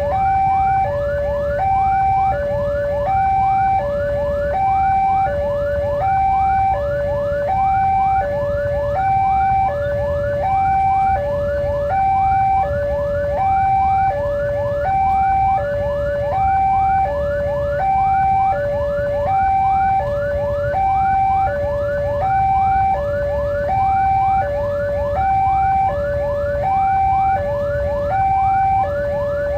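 Railway level-crossing warning alarm sounding continuously: a two-tone electronic signal alternating between a lower and a higher note about every three-quarters of a second, with rapid bell-like ringing strokes over it, the signal that a train is approaching and the crossing is closed. A steady low rumble lies underneath.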